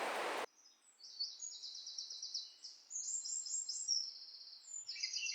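Small bird singing high, rapid trills: several runs of quickly repeated notes, some phrases pitched higher than others. A steady rushing noise cuts off suddenly about half a second in.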